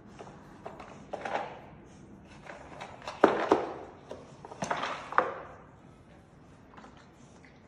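Paper-pulp egg carton being nosed and shoved across a glazed tile floor by a pug puppy: scraping and knocking in three bursts, the loudest about three seconds in.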